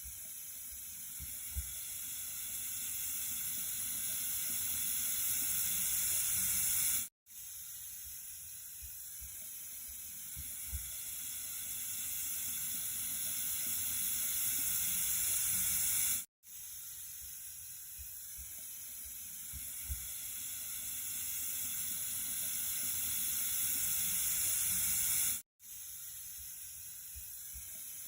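Running water with a steady hiss, like a tap running into a sink, with faint low splashes. It is a loop of about nine seconds that cuts out for an instant three times and swells slightly louder through each pass.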